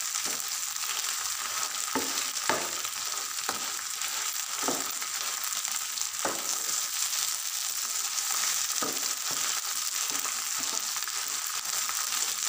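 Sarson ka saag (mustard greens) sizzling in desi ghee in a nonstick frying pan, with a steady hiss. A spatula stirs and scrapes through it, giving irregular short scrapes and knocks every second or two.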